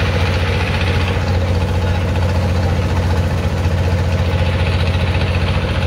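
A small boat's engine running steadily, with a fast, even chugging and a strong low hum.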